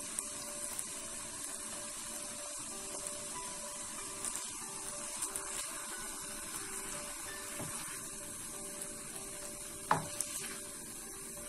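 Chicken pieces and mushrooms sizzling gently in a frying pan while being stirred with a silicone spatula, with small clicks of the utensils under a faint steady hum. A single sharp knock of the utensil against the pan comes about ten seconds in.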